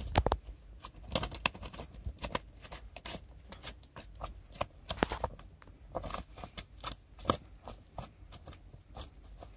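A freshly caught small fish flapping on the line, its body slapping against the grass and the angler's hands in quick irregular slaps, with grass rustling.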